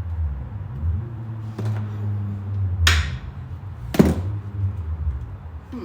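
Tesla Model S flush door handle and door latch being worked during a test: a faint click, then two sharp clunks about a second apart, over a steady low hum.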